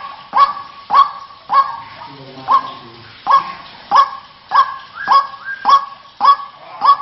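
White-breasted waterhen giving its loud, harsh repeated call, close to two notes a second with a brief break about two seconds in: the ruak-ruak call used as a lure for the bird in rice fields.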